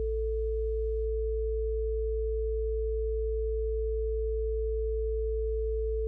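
Steady pure sine tones: a low 55 Hz hum with a steady higher tone above it, unbroken and unchanging. Faint background music fades out in the first second and comes back faintly near the end.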